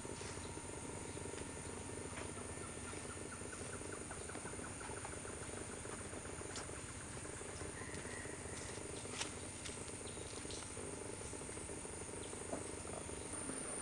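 Tropical forest chorus of insects and frogs calling steadily, with a constant high insect drone. About two seconds in, a quick run of ticking calls goes at roughly four or five a second for a few seconds. Two sharp knocks come later.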